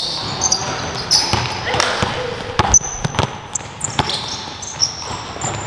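A basketball bouncing on a gym floor in irregular thuds, with players' voices in the background and a few short high squeaks.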